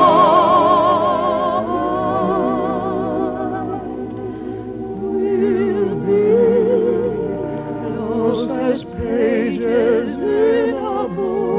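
Studio orchestra music from an early-1950s radio broadcast: a long held note with heavy vibrato ends about two seconds in, and the orchestra plays on with a wavering melody.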